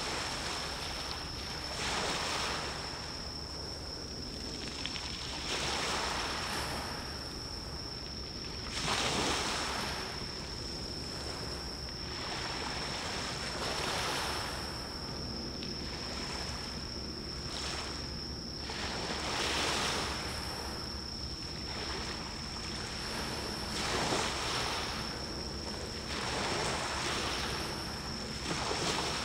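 Sea waves washing in one after another every two to four seconds, over a steady low rumble, with a thin steady high-pitched tone throughout.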